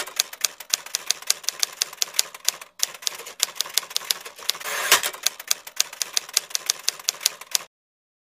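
Typewriter sound effect: a quick run of sharp keystroke clicks, several a second, with a louder rush of noise about five seconds in. It stops suddenly shortly before the end.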